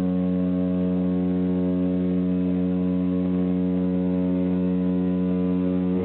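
Cruise ship's horn sounding one long, steady, deep blast, a departing ship's salute to another in a horn exchange.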